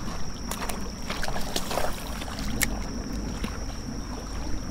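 Shallow creek water sloshing around the legs of someone wading, with a few sharp clicks of footsteps on stones.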